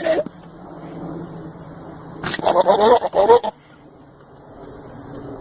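An animal's call with a wavering pitch, lasting about a second and starting a little over two seconds in, after the tail end of a similar call at the very start.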